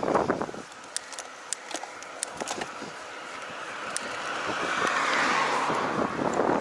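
A car approaching and passing, its tyre and engine noise swelling over a few seconds to a peak about five seconds in. Scattered sharp ticks come in the first half.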